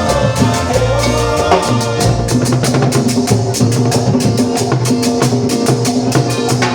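Latin dance-band music, with drums and percussion keeping a steady, fast beat over a bass line.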